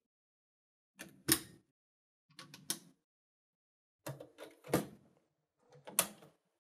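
Plastic toner cartridges knocking and clicking as they are set into a laser printer's imaging unit, in four short bouts of knocks.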